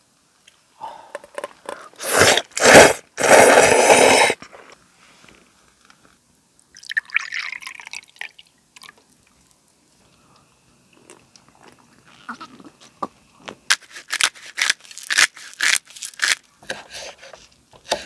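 Udon noodles slurped in two loud bursts about two seconds in, with quieter chewing after. Near the end, a knife chops green onions on a wooden cutting board in a run of quick taps.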